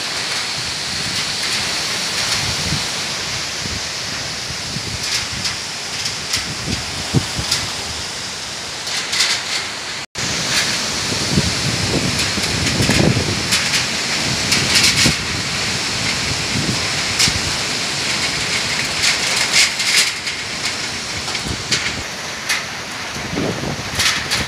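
Storm rain and strong gusting wind tossing palm and broadleaf trees, with gusts buffeting the microphone in uneven low rumbles. The sound cuts out for an instant about ten seconds in.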